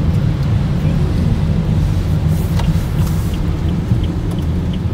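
Steady low rumble of a car driving on a wet road, heard from inside the cabin, with a couple of brief hisses of tyre spray about halfway through.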